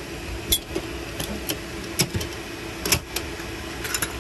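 Steel ammo-can battery box handled, set down and its latched lid opened: a string of sharp metallic clanks and clicks, the loudest about two and three seconds in, over a steady low hum.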